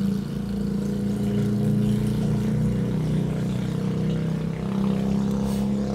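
A steady low hum of a running motor or engine.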